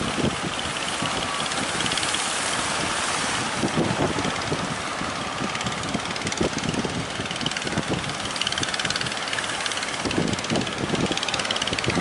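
Strong wind buffeting the microphone over breaking surf, in uneven gusts, with a fishing boat's engine running underneath.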